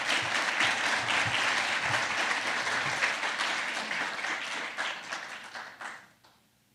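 Audience applauding after a speech, with many hands clapping; the applause dies away about six seconds in.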